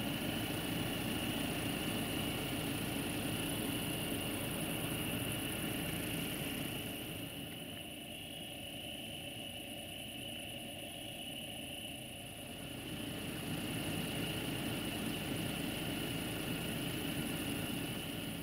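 Distant rumble of an LDE2100 (060-DA) diesel-electric locomotive's Sulzer engine as the freight train approaches, fading somewhat in the middle and then growing again. Crickets chirr steadily throughout.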